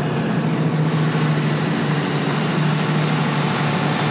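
Ram 2500 pickup truck on rubber tracks, its engine idling steadily.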